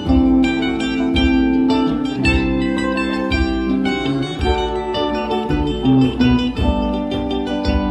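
Live band playing an instrumental passage of a song in waltz time: plucked guitar lines with held, bending notes over hand drums struck in a steady pulse.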